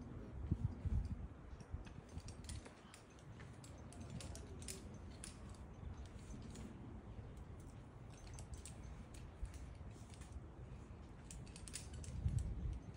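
Light, scattered clicks and rattles of climbing rope and metal gear being handled at the belay, over low rumbling noise on the microphone that swells about half a second in and again near the end.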